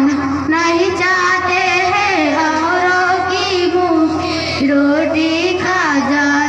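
A young girl singing a song solo into a microphone, in long held notes that waver and glide.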